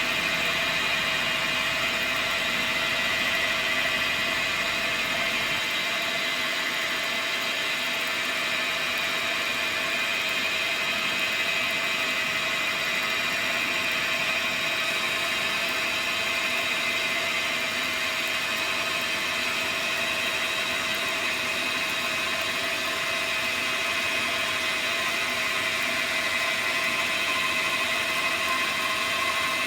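Dyna Mechtronics DM3000 CNC lathe running steadily while turning a test part, a steady high-pitched whine over a constant machine hum.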